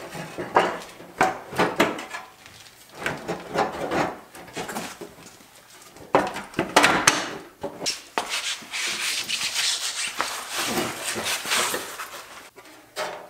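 A car's front fender being handled and fitted against the body: irregular knocks and scraping of the panel on the car, turning into a longer stretch of rubbing in the second half.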